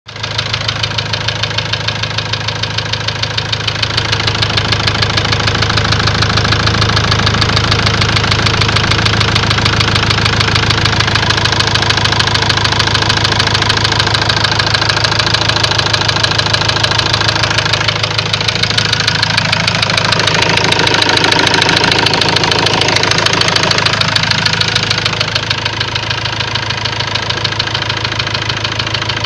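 Ford Transit engine running with a fast, even knock in time with the engine, a sign of a knocking fault inside the engine. It gets a little louder about four seconds in, and louder and brighter again for a few seconds past the middle.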